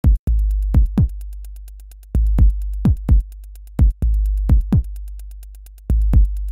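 Electronic music with a drum-machine beat: fast, steady hi-hat ticks, punchy kick drums, and a deep bass note that starts about every two seconds and slowly fades.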